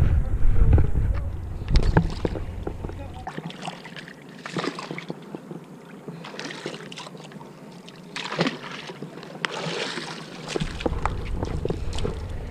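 A small bucket on a rope being dropped into the sea to draw water: several short splashes and sloshing water, with light clicks and knocks from the bucket and rope. Wind buffets the microphone for the first few seconds and again near the end.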